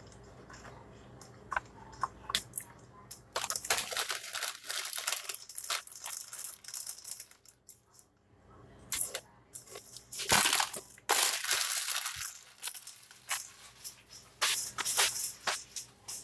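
Crinkling of a plastic snack bag and crunching of chips being eaten, in irregular crackly bursts with short pauses.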